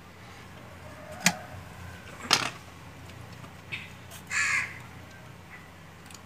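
Metal parts of a hand sewing machine being handled as its needle plate and slide plate are opened: two sharp clicks a little over a second in and about a second apart, then a short harsh rasp about four seconds in.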